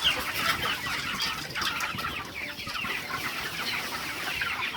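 A flock of young broiler chickens peeping and clucking together in a dense, unbroken chorus of many short chirps.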